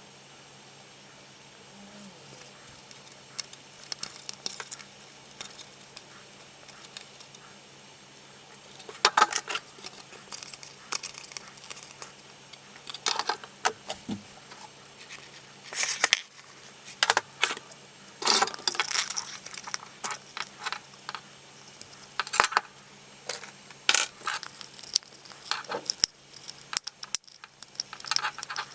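Irregular clicks, clinks and short rattles of small hard plastic and metal parts being handled and set down while a cordless stick vacuum is taken apart by hand.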